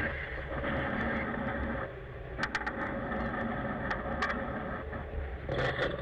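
Steady low drone of a fishing trawler's engine and deck machinery, with sharp clicks and knocks scattered through it and a cluster of them near the end.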